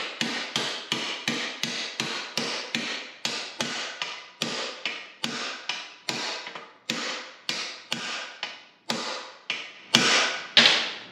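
Hammer blows driving a Moog lower ball joint down into the torch-heated bore of a steel lower control arm, seating it without a press. The strikes come about three a second, each ringing briefly, with the last couple of blows near the end heavier.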